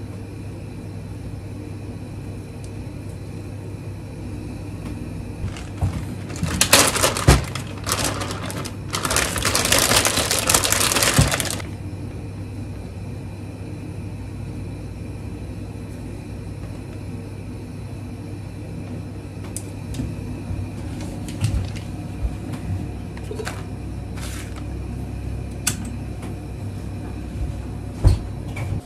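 Kitchen food prep: a plastic bag rustles loudly for several seconds about a third of the way in, followed by a few light clicks of chopsticks and containers, over a steady low appliance hum.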